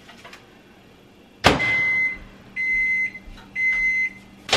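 Over-the-range microwave oven door shut with a bang, then three steady beeps as the microwave is set and started, with its faint low running hum beginning underneath. Two sharp knocks near the end.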